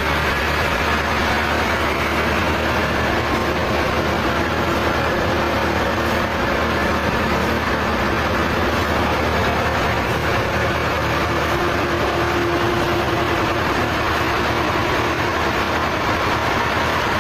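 Sawmill machinery running steadily, a loud continuous mechanical noise over a low engine hum.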